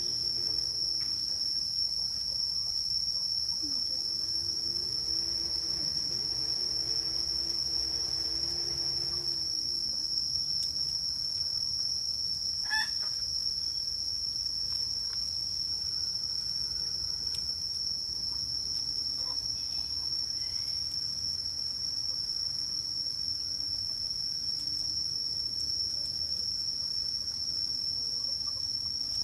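Insects droning in one steady, high-pitched tone without a break, with a fainter, lower sound coming and going in the first ten seconds.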